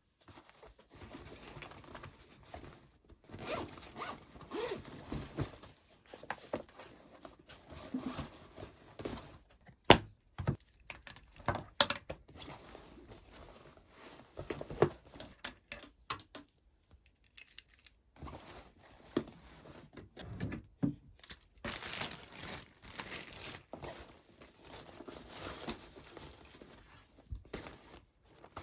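Close handling noises: irregular rustling and crinkling with scattered sharp clicks and knocks, pausing briefly about two thirds of the way through.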